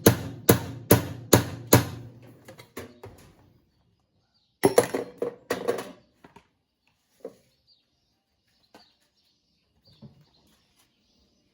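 Repeated sharp knocks on metal, about two a second, fading away over the first three seconds. A short clatter of parts being handled follows about five seconds in, then a few scattered clicks.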